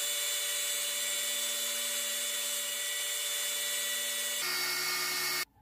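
Porter-Cable bench disc sander running while the end of a wooden chair spindle is pressed against the abrasive disc: a steady motor whine with a sanding hiss. Its tone shifts lower about four seconds in, and the sound stops abruptly near the end.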